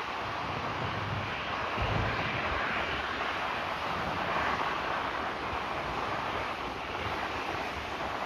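Jet airliner's engines, a steady rushing roar as it passes near the airport.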